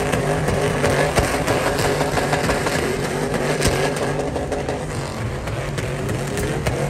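Several pickup truck engines held at high revs while the trucks spin doughnuts in a burnout, their tyres spinning and hissing on the pavement. The revs waver up and down without a break.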